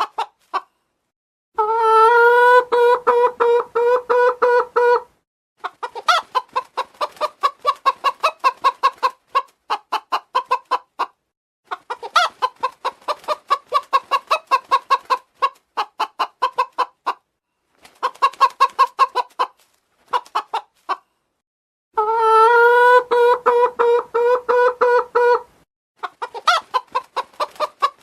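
Domestic chicken clucking in runs of rapid short notes with short pauses between them, twice breaking into a longer, drawn-out pitched call lasting about three seconds, near the start and again near the end.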